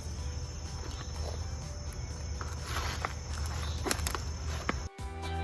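Insects chirping steadily in a high, pulsing trill, with a low rumble and a few soft clicks and rustles of handling. Near the end it cuts off suddenly and upbeat music begins.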